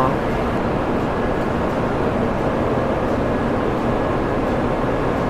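Steady background noise of a large railway station, an even rush with no single event standing out.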